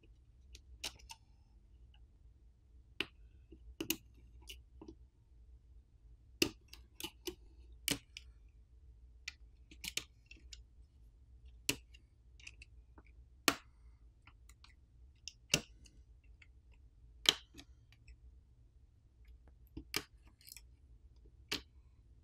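Plastic pry tool clicking against an iPhone 14 Plus's logic board as the flex cable connectors are popped off their sockets: about twenty sharp, separate clicks at irregular intervals, mostly a second or so apart.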